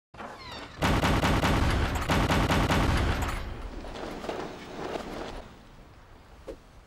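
A loud, rapid rattle of repeated bangs beginning about a second in and lasting about two and a half seconds, then fading to quieter, indistinct sound.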